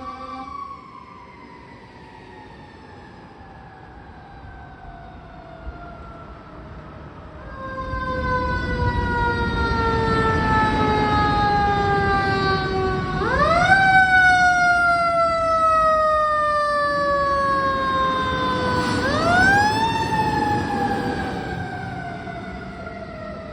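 Fire engine's Federal 'Q' mechanical siren winding slowly down in pitch, then revved twice, about 13 and 19 seconds in. Each time it climbs steeply to a scream and coasts back down. The truck's engine and road noise swell as it passes, loudest around the first rev, then fade.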